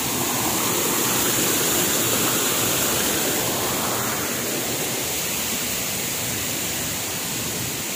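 Steady rush of falling water, a small cascade splashing into a spring-fed pool, easing a little in the second half.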